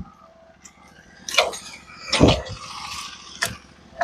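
Three separate knocks and clanks of steel parts on a manual band sawmill being handled. The loudest and deepest comes about two seconds in, with a brief rustle after it.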